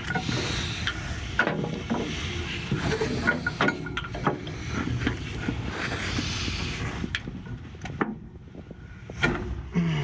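Irregular knocks, clicks and scraping from hands working on the belt-drive blower's pulley and belt inside a sheet-metal air-handler cabinet.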